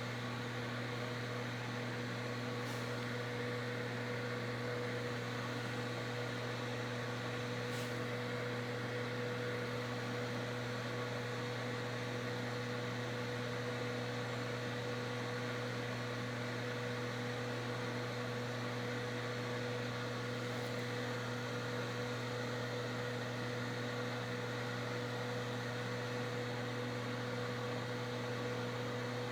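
Crown Macro-Tech 3600 power amplifier idling just after switch-on, its cooling fan running at a steady speed with an even whir and a constant low hum.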